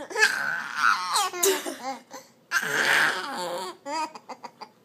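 Baby laughing and squealing in high-pitched bursts, ending in a quick run of short staccato laughs.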